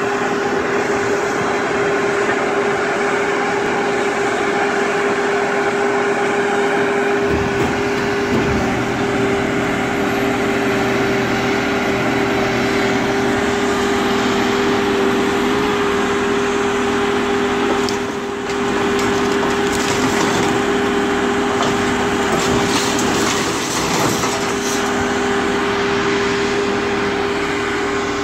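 Aljon 580 car logger's engine and hydraulics running steadily with a constant whine, while its grapple crane clanks and crunches against scrap metal and a car body, with sharper impacts a few seconds in and again past the middle.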